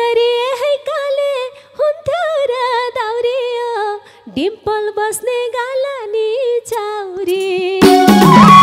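A woman singing a Nepali dohori folk melody solo and unaccompanied into a microphone, with a wavering, ornamented line and short breaths between phrases. Near the end the band comes in loudly with a rhythmic accompaniment.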